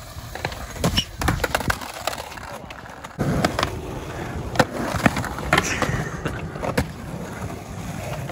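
Skateboard wheels rolling on concrete, with several sharp clacks of boards striking the ground.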